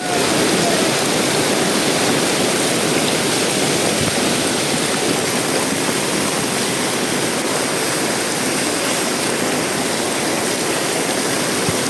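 Steady, loud rushing of water, as from heavy rain or flowing floodwater.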